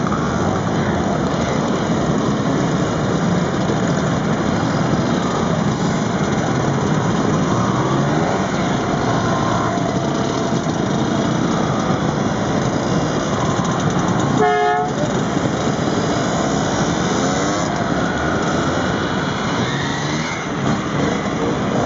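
Several two-stroke vintage scooter engines running and revving as scooters ride past one after another. A short horn toot sounds about two-thirds of the way through.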